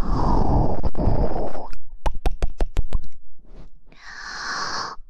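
Close-miked breath and mouth noises into a microphone: a breathy rush with low rumble, then a quick run of about eight small clicks about two seconds in, and a soft breathy hiss near the end.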